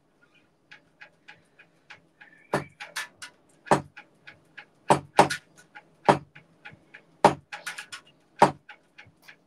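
Drum kit starting to play: light, even stick ticks about three a second, then heavy kick-and-snare hits coming in about two and a half seconds in and recurring among the ticks.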